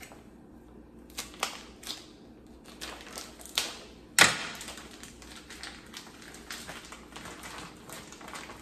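Handling a plastic-wrapped pack of sausages and a kitchen knife over a wooden cutting board: a few scattered clicks and taps, one sharp loud snap just after four seconds in, then soft rustling and faint ticking of the packaging.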